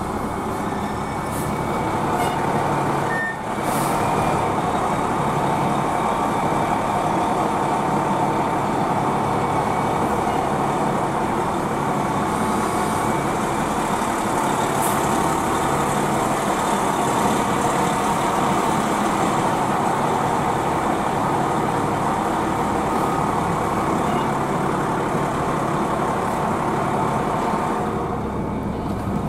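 Fire truck's diesel engine running steadily as the truck drives slowly, heard from on board. There is a brief hiss a little under four seconds in.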